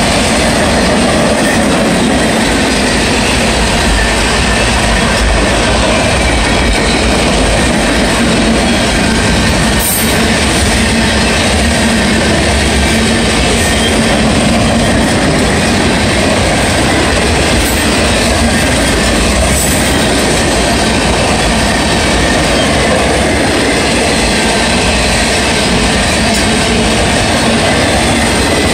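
Freight train cars rolling past close by, steel wheels rumbling and clacking over the rails in a loud, steady stream.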